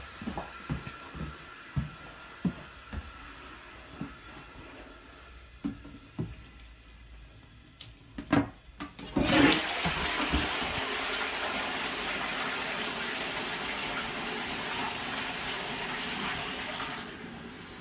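A DUX toilet cistern is flushed. After a few light knocks and two sharp clicks, a loud rush of water starts about nine seconds in, runs steadily for about eight seconds, and dies down near the end.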